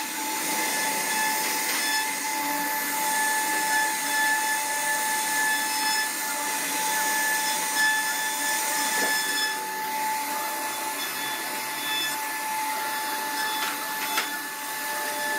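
CNC wood router running steadily: a constant high spindle whine over a hiss, with a couple of brief ticks after the middle.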